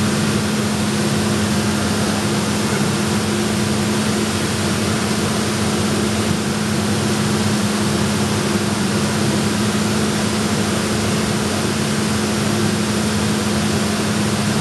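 HHO oxyhydrogen torch flame hissing steadily, with a steady low hum underneath.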